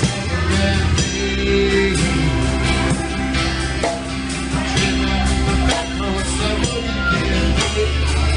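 A live rock band playing an instrumental stretch between sung lines, with guitar, drum kit and sustained bass notes.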